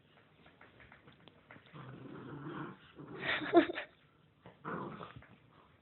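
A small puppy growling in play, in three short bouts, the middle one, about three and a half seconds in, the loudest.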